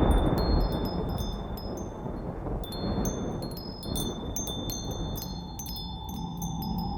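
Wind chimes tinkling in the wind, struck again and again with high ringing notes, more busily after the first couple of seconds. Beneath them a low rumble of thunder and wind, loudest at the start, dies away.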